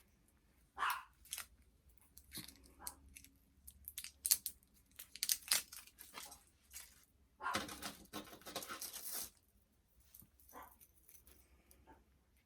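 Plastic doll packaging being handled: scattered clicks and taps, with about two seconds of crinkling and tearing plastic past the middle. A short yelp like a small dog's bark sounds about a second in.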